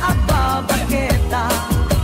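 Background pop music with a singing voice over a steady beat.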